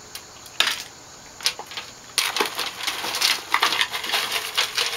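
Ice cubes tipped out of a small metal cup, clattering onto a glass tabletop in a dense rattle of clicks from about two seconds in, after a couple of single knocks.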